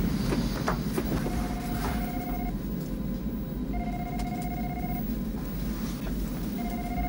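Telephone ringing: long, steady electronic rings, each a bit over a second long and repeating about every two and a half seconds, three in all, over a steady low rumble.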